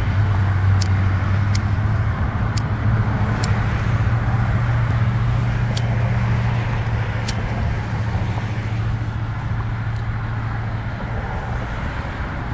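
15-inch subwoofer in a wooden ported box playing a steady low bass note with a hiss of rushing air, and a few sharp ticks scattered through it.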